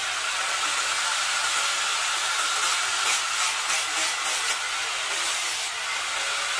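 Hand-held electric angle grinder with an abrasive disc running steadily against kemuning wood, shaping and smoothing it: a continuous motor whine under a rough hiss of abrasive on wood.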